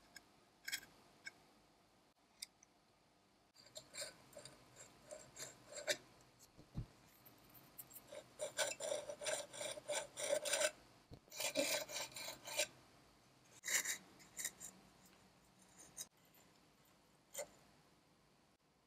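Soldering iron tip scraping and rubbing along a tin-plate seam as solder is worked in, in intermittent rasping bursts of quick scratchy ticks that are busiest in the middle.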